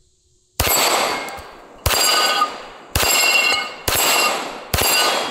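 Five 9mm shots from a Staccato P pistol, roughly one a second, each followed by the ringing clang of a steel plate on a Texas Star target being hit.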